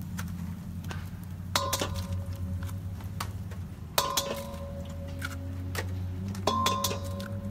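Metal cooking utensil striking a pan on a gas cooker three times, each clink ringing briefly, over a steady low hum.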